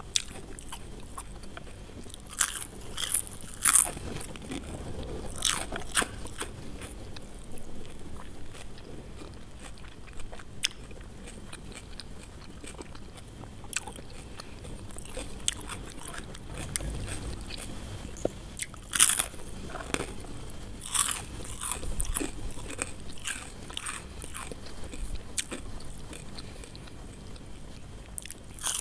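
Close-up eating sounds: crisp fried potato sticks with raw onion and parsley bitten and chewed. Clusters of sharp crunches come a few seconds in and again about two-thirds of the way through, with softer chewing between.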